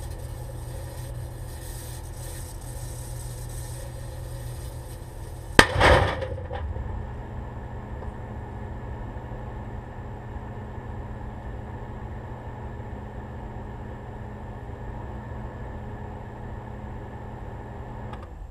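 Microwave oven humming steadily as it runs. About five and a half seconds in, a single sharp bang: a steel-cased .223 round cooking off inside it. The hum carries on and cuts off abruptly near the end as the microwave dies.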